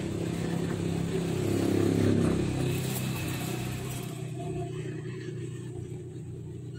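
Low rumble of a motor vehicle's engine, swelling to its loudest about two seconds in and then slowly fading.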